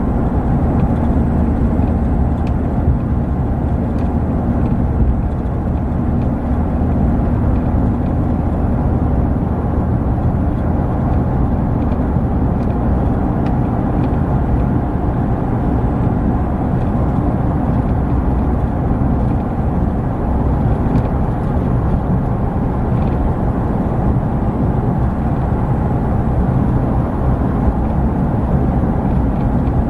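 Strong wind blowing steadily: a dense, low rushing noise that holds an even level throughout, with faint steady tones in it.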